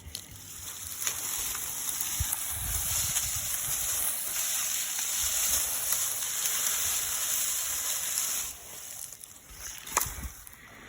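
Steady hiss of spraying or splashing water that stops suddenly about eight and a half seconds in, followed by a single sharp click.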